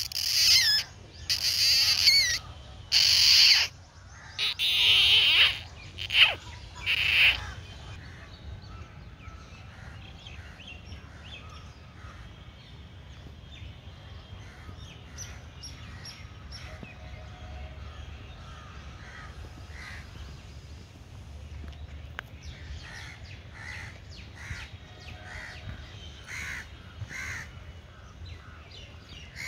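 Birds calling: about six loud calls in the first seven seconds, then only fainter, shorter calls over a low, steady rumble.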